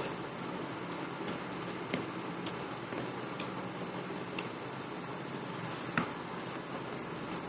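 Biryani rice and raita being mixed by hand on a banana leaf: scattered small clicks and soft squishes over a steady background hum.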